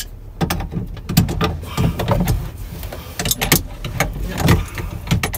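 Adjustable wrench tightening the nut on a boat steering cable's threaded through-hull fitting: a series of irregular sharp metal clicks and clinks as the wrench is set on the nut and turned.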